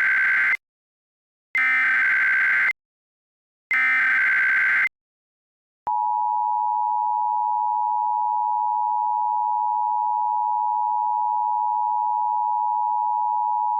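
Emergency Alert System SAME header: the end of one data burst, then two more, each about a second long, a harsh warbling screech. After a second of silence, the two-tone EAS attention signal starts about six seconds in and holds steady.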